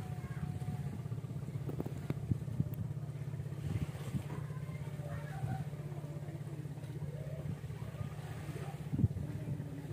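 A small engine running steadily with a low, even throb, and a few short knocks; the sharpest knock comes near the end.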